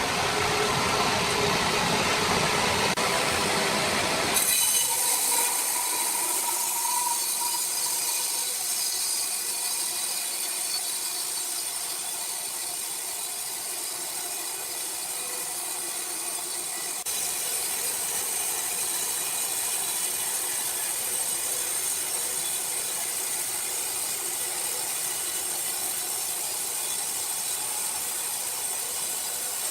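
Sawmill saw cutting wood, a steady, hissy running noise. It changes suddenly about four seconds in, losing its low end and turning thin and high-pitched, and shifts again near the middle.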